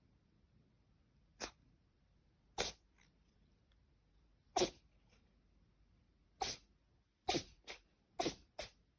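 A dog sneezing over and over in small, cat-like sneezes, about eight short sharp ones, the last four coming in quick succession near the end.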